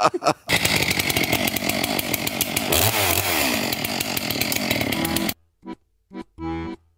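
Chainsaw running and cutting into a birch log. It starts about half a second in and cuts off abruptly about five seconds in. Short notes of background music are heard at the start and near the end.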